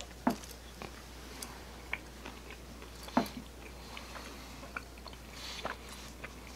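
Close-miked chewing of a mouthful of pizza: wet mouth clicks and soft crunches scattered throughout, with two louder sharp clicks, one just after the start and one about three seconds in.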